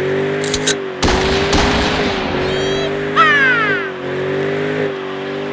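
Ford Mustang GT's 4.6L three-valve V8 held at high revs during a burnout, its note steady and slightly wavering, with the rear tyres spinning and squealing. A high squeal falls in pitch about three seconds in.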